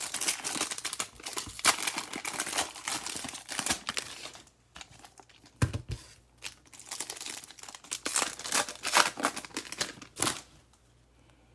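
Foil trading-card pack wrappers, for Mosaic NFL cards, being torn open and crinkled by hand: a long stretch of crackling, a soft low thump near the middle, then more crinkling and tearing that stops about a second before the end.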